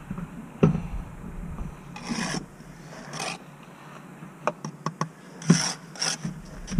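Steel bricklaying trowel scraping wet mortar on concrete blocks: a few short rasping scrapes, with light knocks and taps between them as blocks are set.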